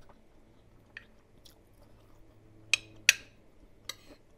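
A person eating: chewing, with a utensil clinking sharply against a plate several times, the two loudest clinks close together about three seconds in.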